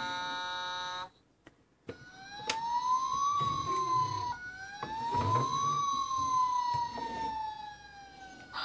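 Electronic siren sound effect from an Early Learning Centre toy fire engine, played through its small speaker. A steady buzzing electronic tone cuts off about a second in, and after a short pause the siren wails up and slowly down in two sweeps.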